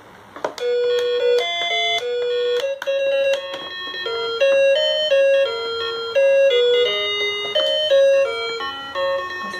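Battery-powered children's fishing-game toy playing its built-in electronic tune: a simple melody of single notes, starting about half a second in right after a click of its button.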